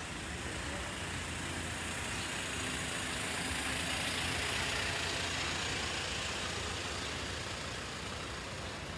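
A motor vehicle passing in street traffic, its engine and tyre noise swelling to a peak about halfway through and easing off again over a steady low engine hum.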